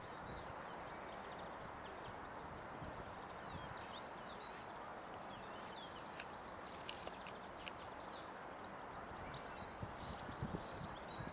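Outdoor ambience: several small songbirds chirping and twittering in many short, quick calls over a steady low background rumble.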